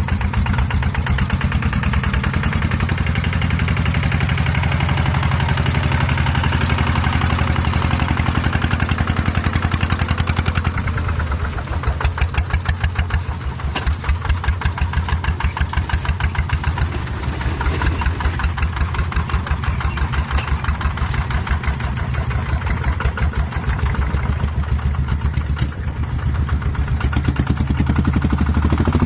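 An engine running, its low beat slowing and turning uneven about eleven seconds in, then picking up and steadying again near the end.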